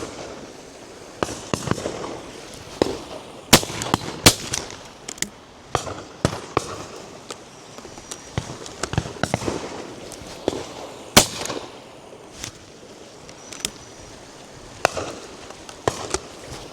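Shotgun shots from a line of guns at a driven game shoot, more than a dozen at irregular intervals. Some are close and loud, others fainter and further off. The loudest come in a quick cluster about three and a half to four and a half seconds in, and as a single sharp report at about eleven seconds.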